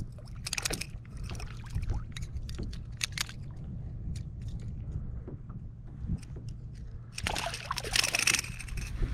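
Steady low water noise around a kayak with scattered light ticks, then about seven seconds in a small hooked trout thrashing and splashing at the surface for about a second, the loudest sound.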